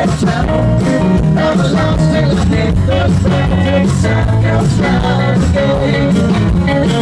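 Live rock band playing, with guitars over a steady drum beat.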